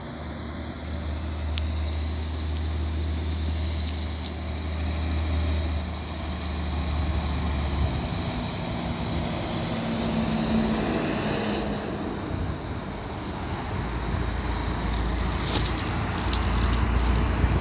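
Road traffic: a truck's engine drone and tyre noise swell as it passes about halfway through. Near the end, wind buffets the microphone with crackles and rumble.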